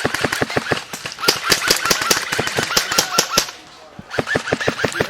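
Airsoft electric gun firing on full auto, a fast rattle of shots at roughly a dozen a second, breaking off about three and a half seconds in and starting again half a second later.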